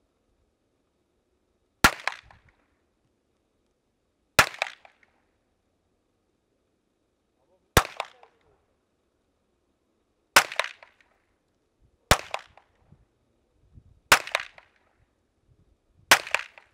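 Seven gunshots fired one at a time, irregularly spaced about one and a half to three and a half seconds apart, each followed by a short echo.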